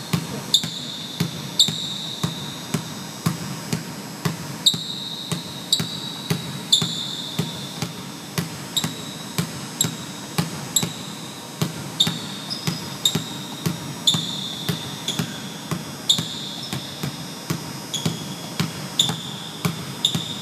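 Basketball dribbled hard and fast on a hardwood gym floor, a steady rhythm of bounces two to three a second, with short high squeaks from sneakers on the floor.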